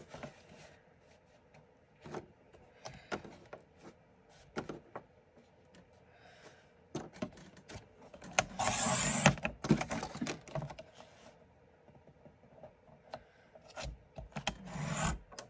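Cardstock being slid and positioned on a Westcott Carbo Titanium paper trimmer, with scattered light taps and clicks. About eight seconds in, a louder rasping swipe lasting a second or two as the trimmer's sliding blade cuts through the sheet, and a shorter scrape near the end.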